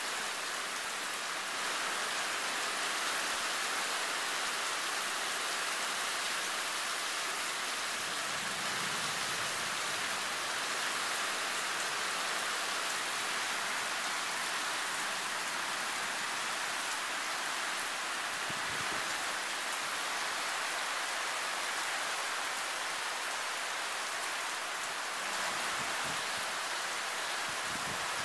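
Heavy tropical downpour falling steadily and loudly, its hiss drowning out the storm's thunder.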